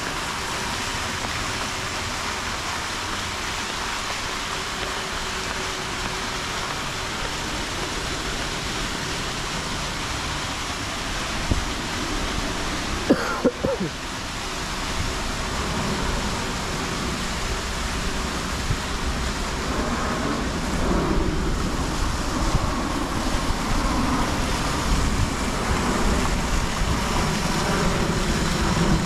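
Steady rushing hiss of fountain jets spraying and splashing into a canal, with a few short knocks about thirteen seconds in.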